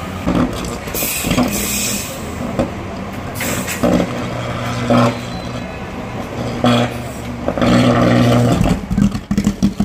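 City bus diesel engine running steadily, with short bursts of hissing air and several sharp knocks. The engine grows louder for about a second near the end.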